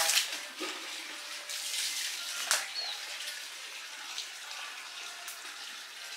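Steady hiss of running water, as from a tap, with a sharp click about two and a half seconds in.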